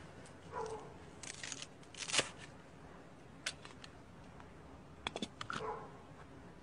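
Handling noise as a pistol is drawn from under a blouse and set down on a wooden table: clothing rustling with a few short clicks and knocks, the sharpest about two seconds in and a cluster of them about five seconds in.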